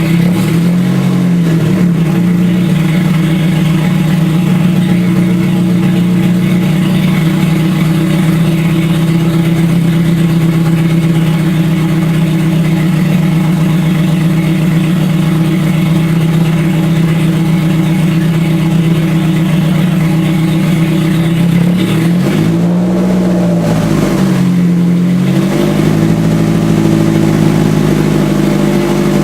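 Toyota 3S-GE inline-four engine, freshly rebuilt and swapped into the car, running steadily while its tune is being sorted out. Near the end its pitch dips and rises briefly a couple of times, then it settles into a rougher, lower-pitched idle.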